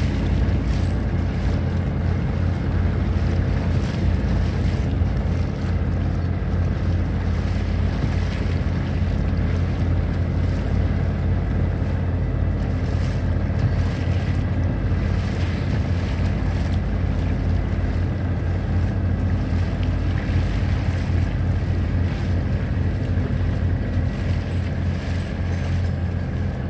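A boat's engine running steadily under way, with water rushing past the hull and wind noise on the microphone.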